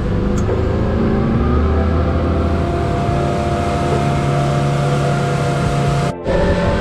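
A 21-foot Sea Fox center-console boat's outboard engine running under way, a steady drone under a rush of wind and water. The sound cuts out for a moment near the end, then goes on.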